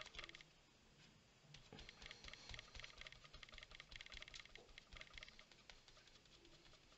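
Faint, rapid patting of a small foam disc dabbing colour onto a paper tag. Many light taps come close together, starting about a second and a half in and thinning out near the end.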